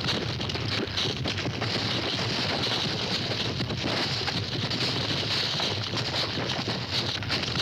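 A herd of cattle stampeding: a continuous, dense clatter of many hooves striking the ground at once.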